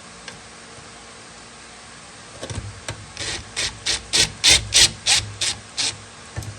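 Rhythmic rubbing or scraping strokes, about three a second, starting a couple of seconds in and growing louder toward the middle.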